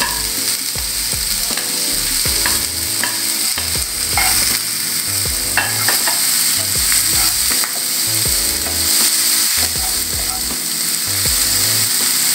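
Chopped onions sizzling in melted butter in a hot non-stick frying pan, with a spatula stirring and scraping them. The spatula knocks against the pan a number of times.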